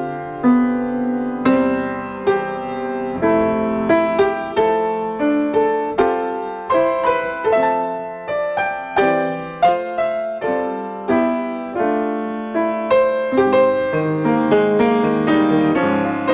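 Solo piano playing a slow, gentle piece, single notes and chords struck about once or twice a second and left to ring.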